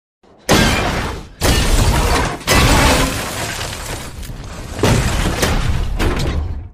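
Film destruction sound effect: a run of heavy crashes and smashing debris, with four big hits in the first five seconds, the first about half a second in, ending abruptly.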